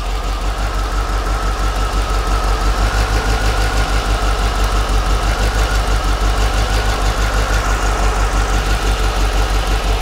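A 1992 Corvette V8 idling with an even low pulse and a faint steady whine over it, while one fuel injector is unplugged for an RPM drop test. The idle does not change, which marks that cylinder as the likely misfiring one.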